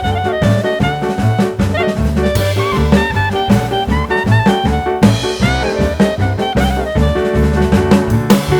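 Background music: upbeat jazz with brass and a swung drum-kit beat.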